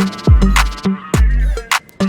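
Background music: a hip-hop style beat with deep bass drops, sharp drum hits and a melodic line.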